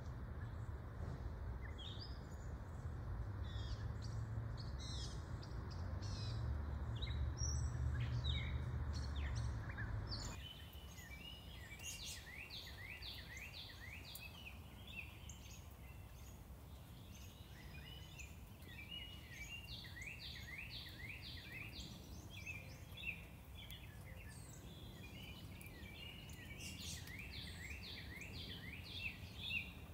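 Songbirds singing over a low traffic rumble. For about the first ten seconds the rumble is strong, with scattered chirps over it. Then it suddenly drops away, leaving a bird's repeated runs of quick chirping notes several times over a quieter background.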